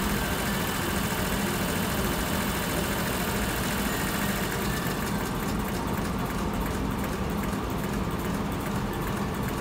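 Induction motor and its coupled load machine running under direct torque control: a steady hum over an even whirring noise.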